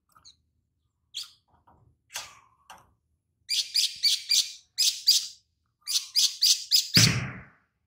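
Male olive-backed sunbird (sogon) singing: a few scattered chirps, then quick runs of sharp high chirps in a lovebird-like chatter, the song it has been trained on. A brief low thump about seven seconds in.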